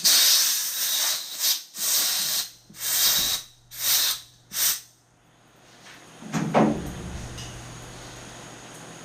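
Pressurised air hissing in about six short, sharp-edged bursts, the first and longest lasting over a second. It is typical of a compressed-air blow gun clearing chips. A duller, lower thud-like sound follows about six and a half seconds in.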